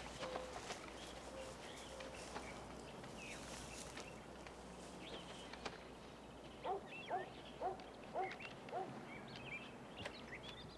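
Quiet forest ambience with birds calling: scattered chirps and whistles, then a run of about five short, arching calls about seven seconds in.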